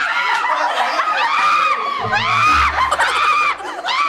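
A group of young people shrieking and cheering in high, excited voices, several rising-and-falling screams one after another.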